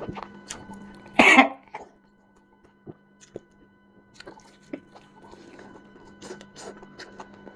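One loud, short cough about a second in, followed by faint scattered clicks and smacks of eating.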